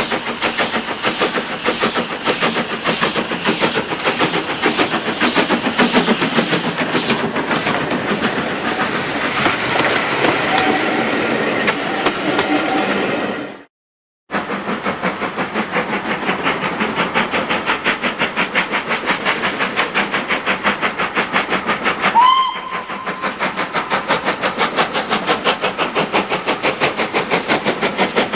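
Steam locomotive hauling a train towards the camera, its exhaust beating steadily. After a brief break, a second steam locomotive with a train comes on with quicker beats and gives one short whistle blast about two-thirds of the way through.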